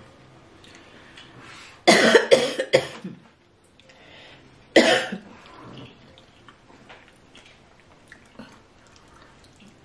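A woman coughing: a run of about four coughs about two seconds in, then one more cough about five seconds in. The coughs are put on to fake illness as part of a prank.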